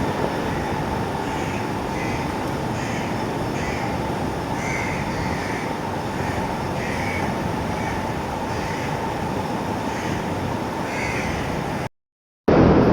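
Birds calling over and over in short harsh calls against a steady rushing background noise. Near the end the sound cuts out for a moment and comes back as a louder, steady noise.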